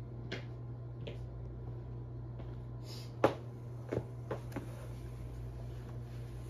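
Footsteps in sneakers on a wooden floor: a few scattered taps, a sharp knock a little past three seconds in, then three quicker, softer taps as the walker stops and kneels, over a steady low hum.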